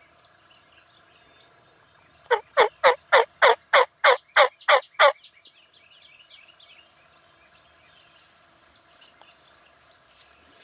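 A quick, even run of about a dozen loud turkey yelps, each note dropping in pitch, starting about two seconds in and lasting under three seconds. Small birds chirp faintly around it.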